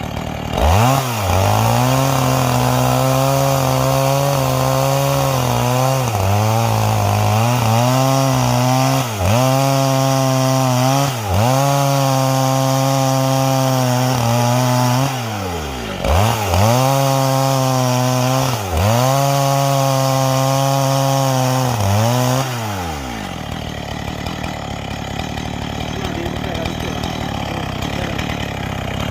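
Two-stroke chainsaw held at full throttle, ripping lengthwise through a log of garapa amarela hardwood with a square-ground chisel chain. The engine speed dips briefly and recovers several times. About 22 seconds in, it drops back to a lower, quieter idle.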